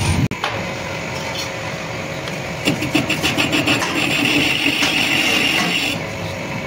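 Metal lathe running with its chuck spinning while a cutting tool works inside the bore of a metal workpiece. From about three seconds in, a harsh rasping cut with a high whine joins the machine's running sound, easing off about six seconds in.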